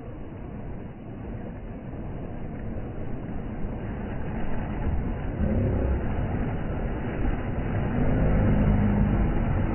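Boat engine running and growing louder, a steady low hum coming in about halfway through, over small waves washing onto the beach.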